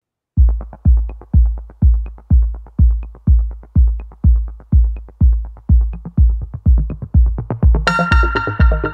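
Electronic dance music with a steady kick drum about twice a second, starting just after the opening; synth chords come in near the end.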